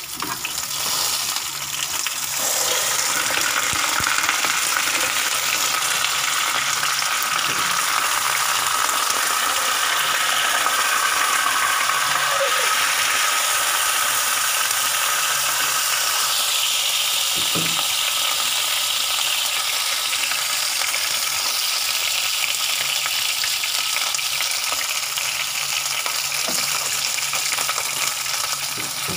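Hot oil sizzling steadily around a whole fish shallow-frying in a non-stick pan, the sizzle growing louder about two seconds in and then holding.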